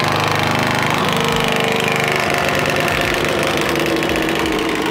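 Drill-driven sheet-metal nibbler (Bad Dog Tools Biter) running steadily, rapidly punching small bites through a car's steel quarter panel with a fast, even chatter.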